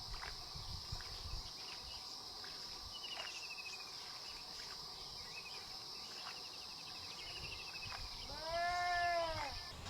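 Forest insects droning steadily on one high note, with a few short falling bird chirps. Near the end comes one arched animal call, rising then falling in pitch and lasting about a second; it is the loudest sound.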